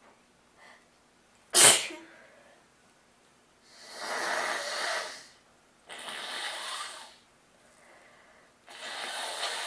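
One sharp sneeze from a person with a cold about a second and a half in, the loudest sound, followed by three nose blows, each a second or more of rushing noise.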